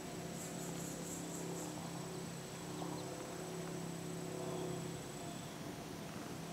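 Outdoor ambience of a steady low hum with insects calling faintly and high. In the first second and a half the insect call comes as a short run of rapid pulses.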